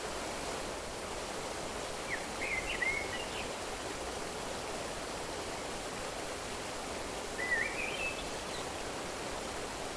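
Steady rushing of a flowing stream, with a small bird singing two short chirping phrases over it, about two seconds in and again near eight seconds.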